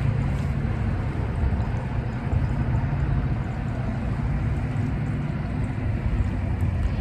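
Steady low motor rumble with a faint held hum.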